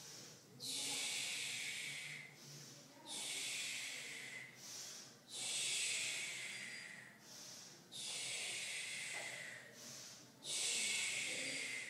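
Loud, rhythmic breathing of a person exercising: about five forceful breaths, roughly every two and a half seconds, each starting abruptly and tailing off.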